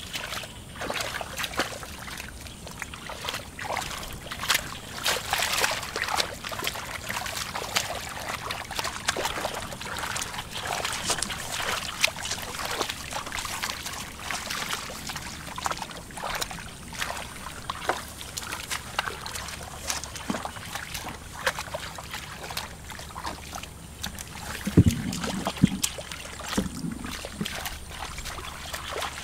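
Hands splashing and sloshing in shallow muddy ditch water while groping for fish by hand: a steady run of short, irregular splashes.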